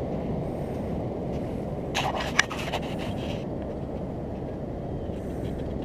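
Steady low rush of wind and surf, with a short cluster of sharp scraping clicks about two seconds in.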